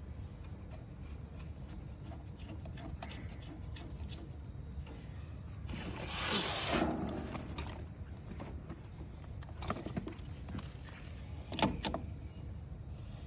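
Small metal clicks and scraping as the fan nut is threaded and tightened back onto the outdoor unit's fan-motor shaft. There is a longer scrape about halfway through and a sharp click near the end.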